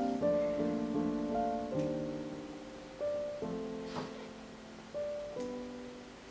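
Background piano music: slow, single notes and chords, each ringing and decaying, growing quieter and dying away near the end.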